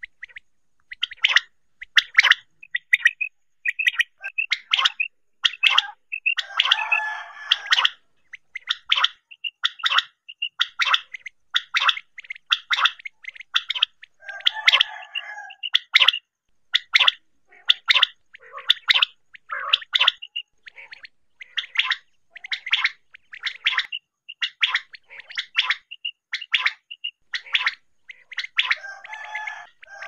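Common quail calling: a long run of short, sharp, high notes, roughly two a second, broken by longer, rougher, lower bursts about seven seconds in, about halfway through, and at the end.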